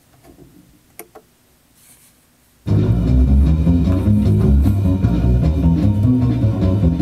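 Vinyl LP playing on a turntable: faint surface noise with two sharp clicks, then about two and a half seconds in a jazz record begins abruptly and plays loudly, with a strong bass line.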